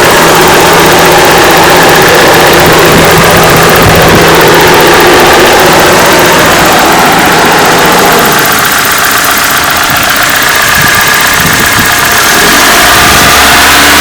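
Toyota 5A-FE four-cylinder engine running with a knock that the owner puts down to the camshafts, on an engine with 306,000 km that has never been rebuilt; it eases a little in the middle and comes back up near the end.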